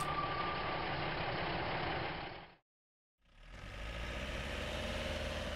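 Cartoon vehicle engine sound effects: an engine running steadily, cutting off suddenly about two and a half seconds in, then after a short silence another engine running with a faint wavering hum.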